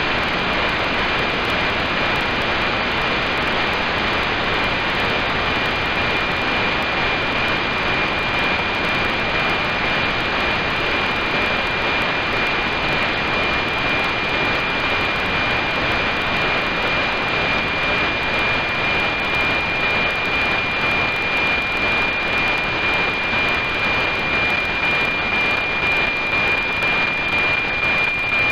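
NOAA-19 weather satellite's APT signal on 137.1 MHz, FM-demodulated by an SDR receiver: heavy static hiss with a steady high tone near 2.4 kHz, the APT subcarrier, running through it. A faint regular pulsing in loudness comes in later on.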